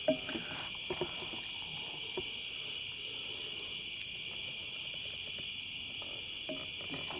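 A steady chorus of crickets and other night insects, with a few soft clicks and scrapes of a wooden spoon serving stuffing onto a metal plate in the first couple of seconds.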